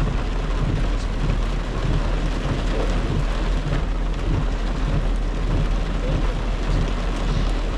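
Heavy rain falling on a car's roof and windshield, heard from inside the cabin as a steady hiss, over a low steady rumble from the moving car.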